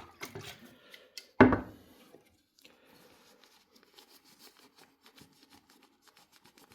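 A loud thump about a second and a half in, then faint, scratchy rubbing as a rag wipes the kettle's clear plastic part with isopropyl alcohol.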